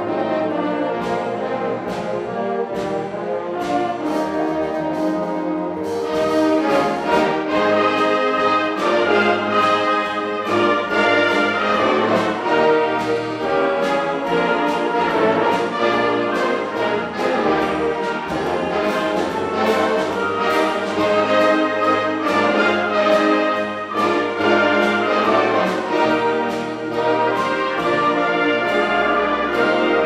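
Concert band of woodwinds and brass playing with a steady percussion beat; the full band comes in louder about six seconds in.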